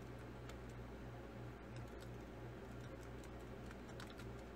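Faint computer keyboard typing: scattered key clicks over a steady low hum.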